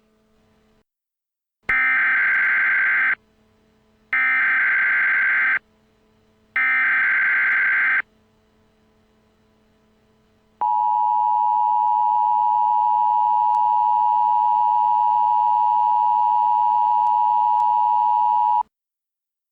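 Emergency Alert System tones: three bursts of the SAME digital header data, each about a second and a half long with a second's gap between, then the steady two-tone attention signal held for about eight seconds and cut off sharply. This sequence marks the start of a new alert.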